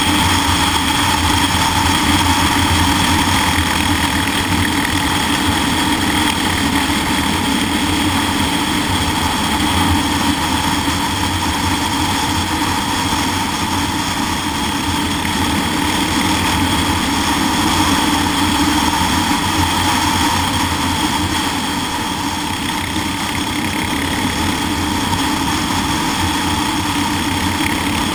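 Motorcycle engine running steadily at cruising speed, heard from the rider's seat, with wind rush over the bike. The engine keeps an even note throughout, with no revving or gear changes.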